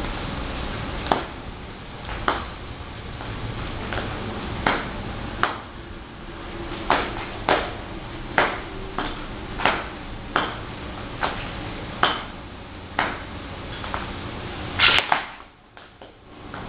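Footsteps of ballet boots on a stone tile floor: sharp clicks, roughly one a second and slightly irregular, with a louder click near the end.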